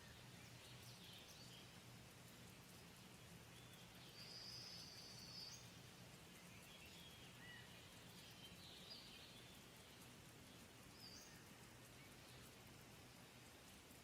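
Faint outdoor ambience: scattered short bird chirps over a low, steady hum.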